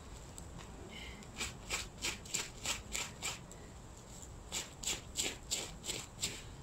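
A flint blade slicing through the connective tissue between a red deer's hide and muscle as the hide is skinned off: quick, short cutting strokes, about four or five a second, in two runs with a short pause between.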